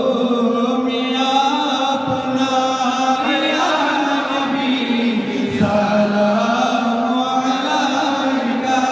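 Men chanting a Bengali salatu salam, a devotional salutation to the Prophet, led by one voice on a microphone with others joining, in long drawn-out held notes.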